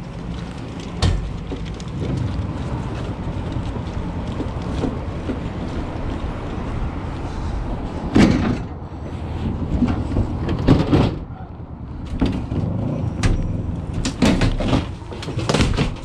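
A van's engine running with a steady low hum, then several sharp clunks and knocks in the second half.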